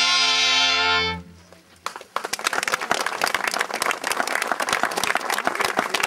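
A cobla band, with reed and brass instruments, ends a piece on a long held chord that cuts off about a second in. After a brief pause, an outdoor crowd breaks into steady applause.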